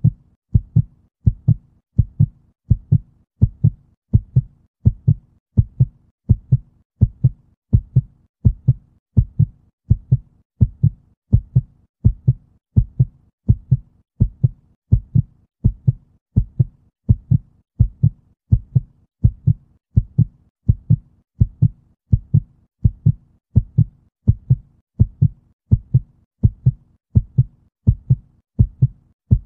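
Human heartbeat, beating steadily and evenly at a little over one beat a second.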